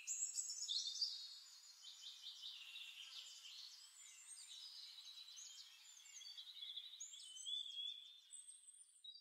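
Faint birdsong: a continuous run of high chirping, warbling phrases, played as the exhibit's recorded soundscape, with nothing low beneath it.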